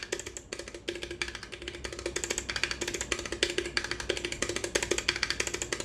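Mechanical keyboard switches with keycaps, mounted in a clear 5x5 switch tester board, pressed rapidly by fingers: a quick, uneven run of key clicks and clacks, several a second.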